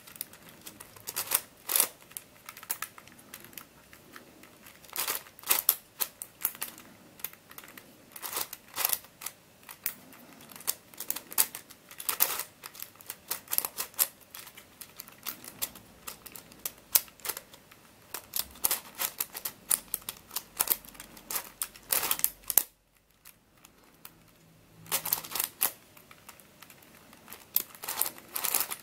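MF8 Radiolarian 2 twisty puzzle being scrambled by hand: rapid, irregular clicking and clacking of its plastic pieces as the faces are turned, with a short break about three-quarters of the way through.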